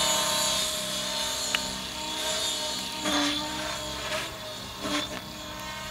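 Forza 700 radio-controlled helicopter with Halo Jr rotor blades in flight overhead: a steady hum of motor and rotor, getting slowly fainter.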